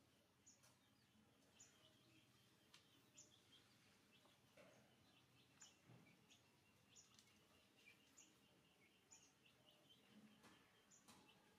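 Near silence: faint room tone with many short, high chirps scattered through it and a few soft clicks.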